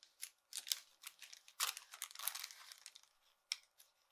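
Paper wrapper of a bandage being peeled and torn open by hand: soft crinkling and tearing rustles in a few short spells, with a small click about three and a half seconds in.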